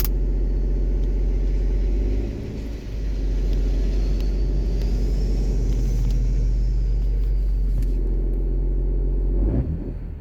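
BMW E39 engine idling with a knocking rattle from a worn dual-mass flywheel, the kind that goes quiet when the clutch is pressed. The sound dips briefly about two seconds in and again near the end.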